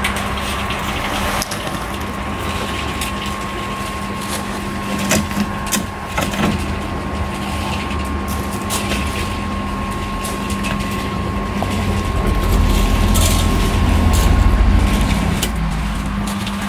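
Small electric cement mixer running with a steady hum, while a wheelbarrow load of wet concrete is tipped and scraped into a trench and gravel crunches under the wheel and feet. A louder low rumble comes about twelve seconds in.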